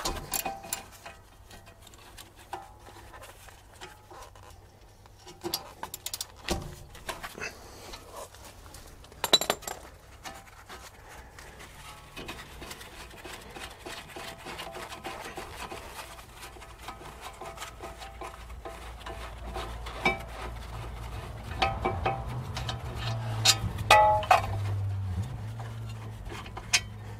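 Socket ratchet clicking, with metal clinks and knocks of tools and brake parts as the front brake caliper carrier bolts are undone. A steady low hum grows louder in the last several seconds.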